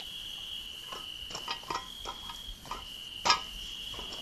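Crickets chirping in a steady, continuous trill, with a scatter of light clicks and knocks, the loudest a little over three seconds in.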